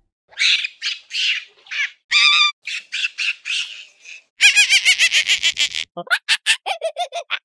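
Monkeys calling: a string of high-pitched squeals and shrieks, then about a second and a half of rapid chattering calls around four and a half seconds in, followed by short, sharp calls.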